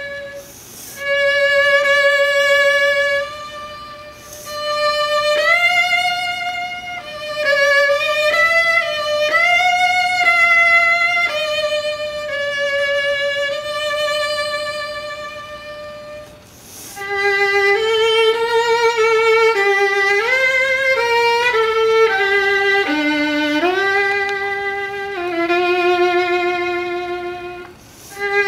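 Solo violin playing a slow, unaccompanied melody with wide vibrato on long held notes, in phrases with short breaks between them.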